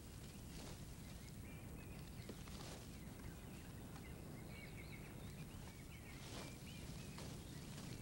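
Faint forest ambience: a steady low hiss with thin, distant warbling birdsong from about a second in until about six seconds, and a few brief clicks.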